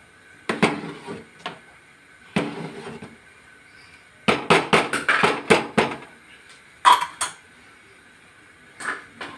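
A metal ladle stirring thick dal makhani in an aluminium pot, knocking and scraping against the pot's side in irregular clatters with a short ring after each. A quick run of knocks comes about halfway through, with a few single knocks near the end.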